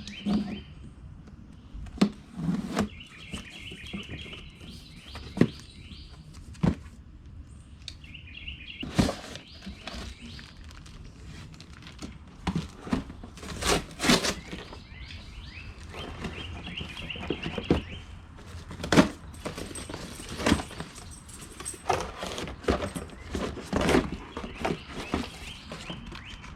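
Cardboard box and packaging handled as a chainsaw and its parts are taken out: irregular knocks, clunks and rustling, loudest near the middle and around nineteen seconds in. Birds chirp in short repeated phrases in the background.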